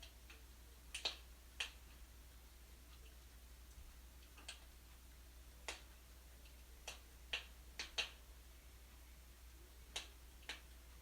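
Wood fire burning in a fireplace, crackling with sharp, irregular pops and snaps, about a dozen in all, some in quick pairs.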